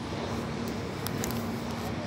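Steady outdoor background noise with a faint, even hum and a few light clicks, typical of distant machinery on an industrial site.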